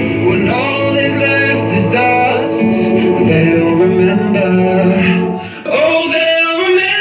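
A song with a male singer and guitars plays loudly through the golf cart's Ecoxgear speaker system and subwoofer. The sound dips briefly about five and a half seconds in.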